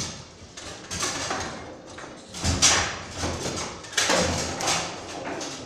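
Foosball being played on a Bonzini table: a run of sharp knocks and clacks as the figures strike the ball and the rods slide and bang. The loudest knocks come about two and a half seconds in and again at four seconds.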